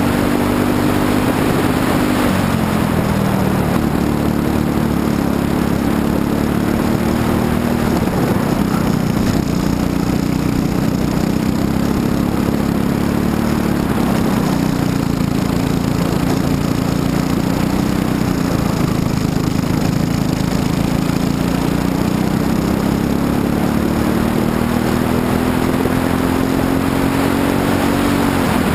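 Kart's Briggs & Stratton LO206 single-cylinder four-stroke engine running at race pace, heard onboard. The engine note falls about two seconds in and again around the middle as the kart slows, then climbs as it accelerates. A long climb near the end drops off suddenly.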